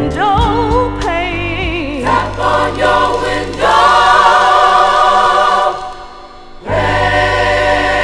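Gospel choir singing with a band: a solo voice with wide vibrato at first, then the full choir holding chords. The sound dips briefly about six seconds in before the choir comes back in full.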